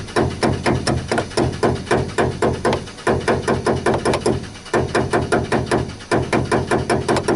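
Fast, even knocking of a large ratchet being struck against the car's fuel tank, about five or six blows a second with brief pauses, while the engine is cranked. This is the old trick for jolting a dead fuel pump into running.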